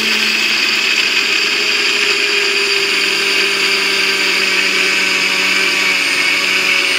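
Nutribullet blender motor running loud and steady with its milling blade fitted, grinding pumpkin seeds, linseeds and goji berries into a fine powder.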